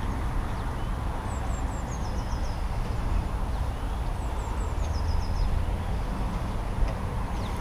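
A small songbird sings two short phrases, each a quick run of high notes stepping down in pitch and ending in a few repeated notes, over a steady low rumble.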